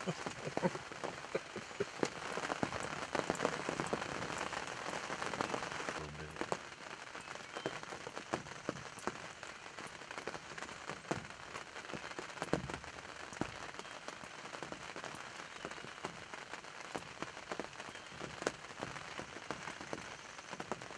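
Steady rain falling on a hunting ground blind's fabric, many separate drops tapping sharply over an even hiss; the rain eases slightly about six seconds in.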